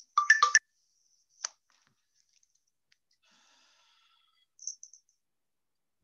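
A quick run of sharp clicks and knocks, a single click about a second later, then a few faint, short high chirps near the end.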